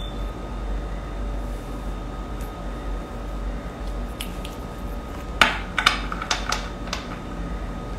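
Steady low hum with a faint high tone, then a quick run of about six sharp clicks or taps, starting about five and a half seconds in and lasting about a second and a half.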